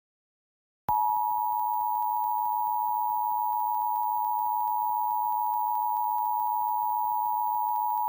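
Emergency Alert System attention signal: a steady two-tone alert at 853 and 960 Hz. It starts about a second in and holds at one pitch and one level without a break.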